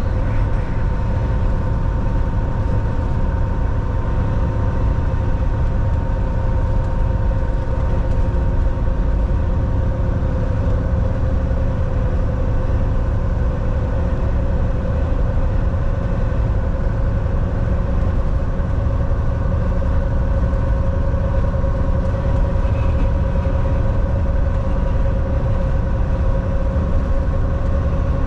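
Volvo semi-truck driving at a steady speed: a constant low rumble of engine and road noise, with a steady hum on top that does not change.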